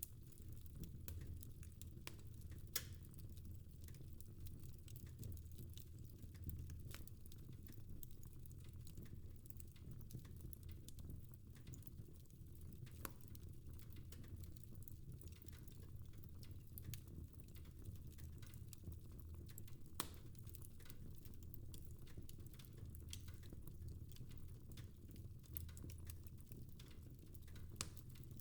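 Fireplace crackling: irregular small pops and snaps over a faint low rumble, with a couple of sharper pops, one about three seconds in and one about two-thirds of the way through.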